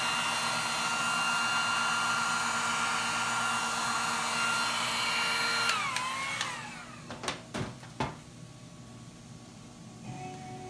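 Electric heat gun blowing with a steady rush and a high whine, switched off about six seconds in, its whine falling as the fan spins down. Three sharp knocks follow a second or two later.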